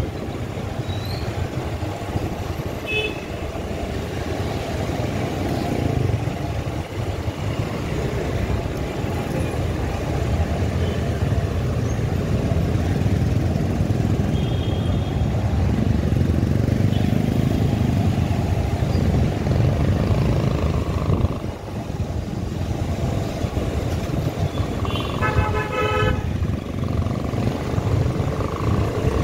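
Motorcycle running on the road with a steady low engine and wind rumble. A vehicle horn honks for about a second near the end.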